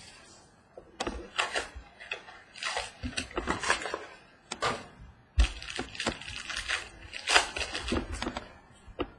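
Trading-card mini box and its foil wrapper being torn open and crinkled by hand: an irregular run of crackling rustles, with one sharp knock on the table about five seconds in.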